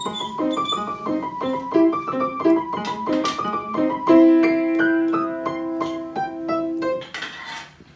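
Piano played with both hands: a quick, repeating figure of short notes, then about four seconds in a long held chord with short notes over it, and more short notes near the end.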